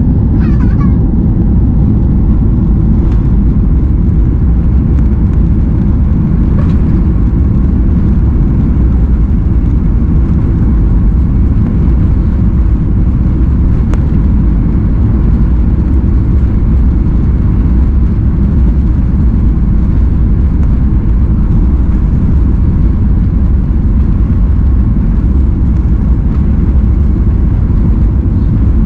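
Jet airliner cabin noise while taxiing: a steady, loud low rumble of the engines and the wheels rolling on the taxiway, heard from a window seat over the wing.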